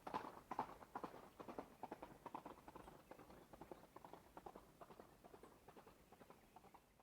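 Hoofbeats of a running horse in a quick, steady rhythm, loud at first and fading away until they are barely audible near the end.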